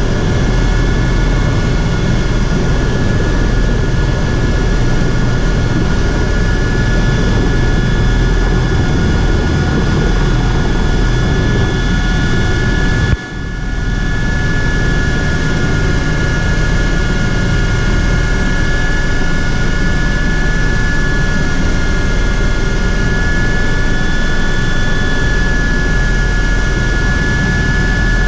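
Helicopter turbine engine and main rotor running steadily, heard from inside the cabin, with a constant high whine over the rotor noise. The sound drops out sharply for a moment about halfway through, then comes back.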